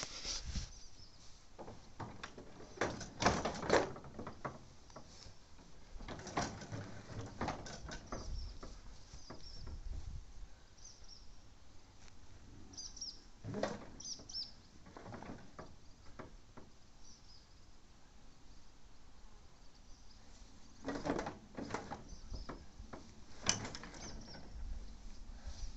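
Scattered knocks, clunks and scrapes of a ride-on mower's cutting deck being dragged out from under the mower by hand, bunched into a few short spells. Birds chirp faintly now and then.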